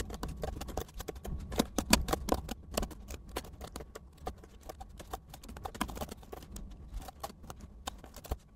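Typing on a computer keyboard: a rapid, irregular run of key clicks as code is entered, over a low steady hum.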